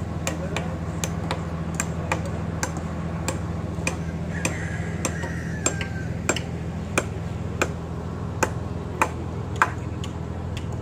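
Boom crane truck's diesel engine running steadily, with sharp, irregular knocks over it, several louder ones in the second half.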